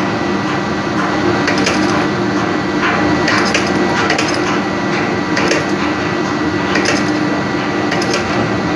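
Steady machinery drone with irregular sharp knocks, several seconds apart, from hand work on a large marine diesel engine opened up for cylinder liner fitting.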